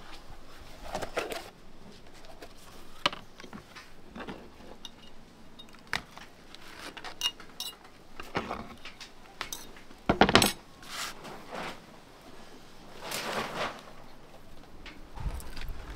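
Metal cleaver and fork knocking and scraping on a wooden cutting board as chopped pork is pushed into a takeaway box: scattered clinks and knocks, the loudest about ten seconds in.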